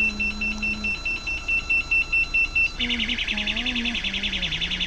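Car-carrier truck's electronic reversing alarm sounding while the truck backs up. A rapid, even high beeping for the first three seconds switches to a faster warbling tone.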